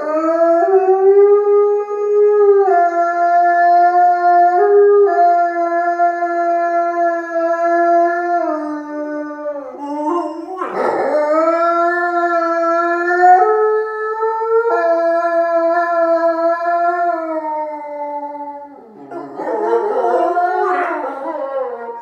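A large wolf-like dog howling in long held notes that step between a few pitches. There is a brief swooping break about halfway through and a rougher, wavering stretch near the end.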